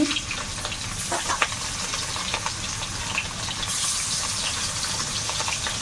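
Pieces of rohu fish frying in hot oil in a karai: a steady sizzle with small scattered crackles.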